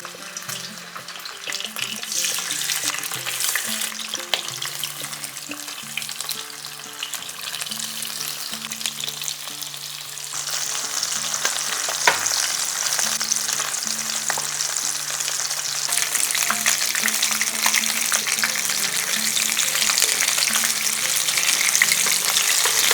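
Small bata fish frying in hot mustard oil, a dense sizzle and crackle that grows louder as more fish go into the pan. Soft background music plays underneath.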